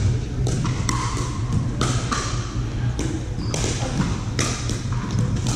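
Pickleball paddles striking a hard plastic ball and the ball bouncing on a hardwood gym floor: an irregular series of sharp pops and taps, some from neighbouring courts, over a steady low hum.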